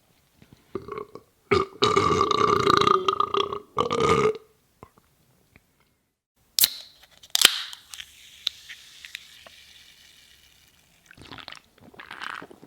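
A long burp, then an aluminium soda can's tab cracking open with two sharp clicks, followed by the fizz of the carbonation hissing and fading away. A few short noises near the end.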